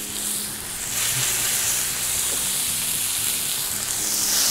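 Marinated gyros pork strips sizzling as they are laid onto a hot cast-iron pan over a gas burner. The sizzle grows louder about a second in and again near the end as more meat goes into the pan.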